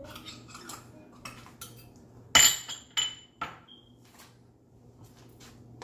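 Metal spoon clinking and tapping against kitchen containers while spice is measured out: a few light clicks, one loud ringing clink about two and a half seconds in, then a couple of lighter knocks.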